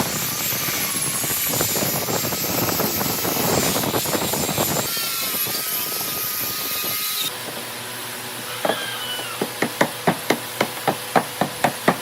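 Steady, noisy woodworking tool sound that breaks off, then rapid hammering on wood, about four blows a second, through the second half.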